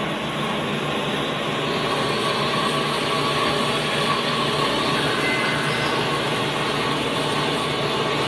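A semi-automatic 600 mm metal-cutting band saw running with a steady, loud mechanical noise and a faint held tone.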